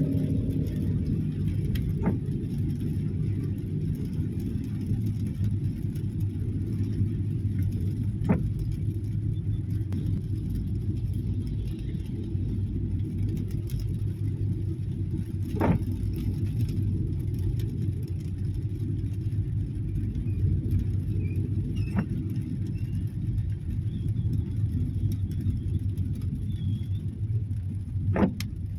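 Steady low rumble of a car driving, heard from inside the cabin, with five short sharp clicks spaced about six or seven seconds apart.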